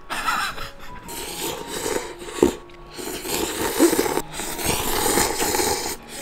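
A person slurping instant udon noodles from a paper cup in several long pulls broken by short pauses, with a sharp click about two and a half seconds in.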